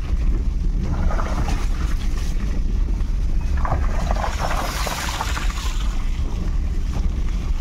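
Wind buffeting the microphone: a steady low rumble, with brief rustling hiss about a second in and again around the middle.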